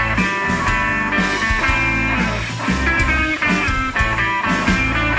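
Background rock music with guitar over a steady drum beat.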